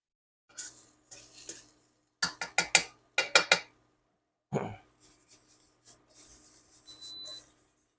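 A utensil scraping around a pan of shrimp being tossed in a stir-fry, with two quick runs of sharp clanks against the pan and a heavier knock about halfway through.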